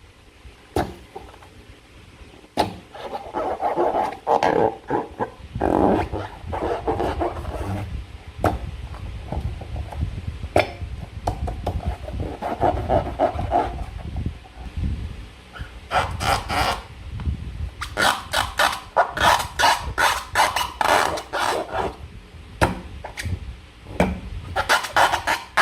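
Slime being squeezed and worked by hand, wet squelching with rapid crackling clicks. The crackling is densest in the second half.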